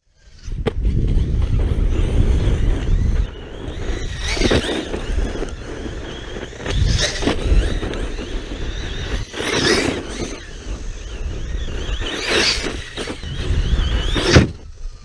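Arrma Kraton 6S RC truck's brushless motor whining under throttle over a low rumble of running noise. It is blipped in repeated sharp bursts about every two to three seconds, and the loudest burst comes near the end.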